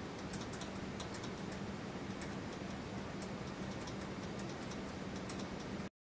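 Small homemade Morse code switch being tapped with a finger: light, sharp clicks in irregular short runs, over a steady low hum.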